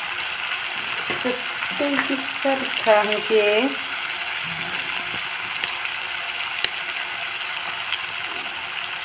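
Oil sizzling steadily in a pan of frying sliced onions as spice powder is poured in. A person's voice is heard briefly from about one to four seconds in.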